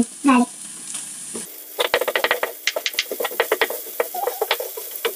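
Wooden spatula stirring pulled chicken in a sizzling frying pan: a rapid run of scrapes and taps against the pan, starting about two seconds in.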